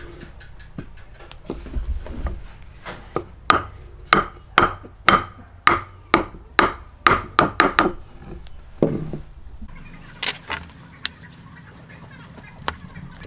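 Hand-cut wooden timber joint being knocked together: about a dozen sharp wooden knocks, coming quicker toward the end, as the pieces are driven closed. After a dull thud, lighter clicks and scraping follow as a chisel pares a small block of wood.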